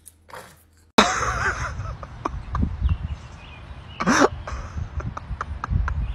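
Wind buffeting the microphone outdoors, a low rumble with scattered clicks. About four seconds in comes a short, loud, cough-like sound that drops in pitch.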